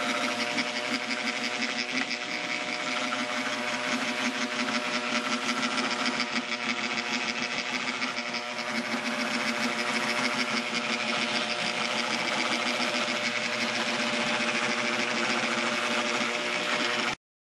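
Small home-built 12-volt robot mower running on grass: its electric motors whir steadily with several held tones and a fine rapid ticking. The sound cuts off abruptly near the end.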